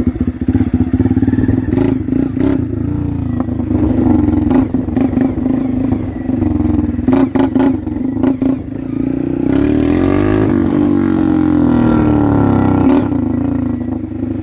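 Honda Titan motorcycle's single-cylinder engine revved through a homemade PVC exhaust outlet, crackling with sharp pops on the throttle blips. About ten seconds in comes a longer rev that rises and falls.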